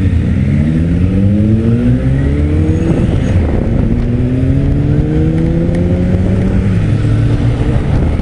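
Motorcycle engines accelerating away from a stop, the pitch rising through the gears, with an upshift about three seconds in and another about a second before the end.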